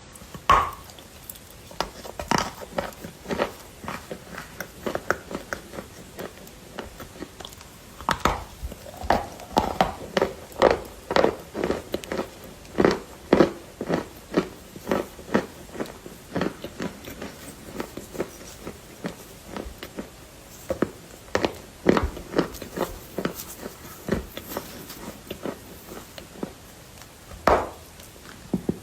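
Close-up crunching and chewing of hard, brittle sandment (baked sand-and-cement) pieces: a run of sharp, irregular crunches, one or two a second, with a few short pauses.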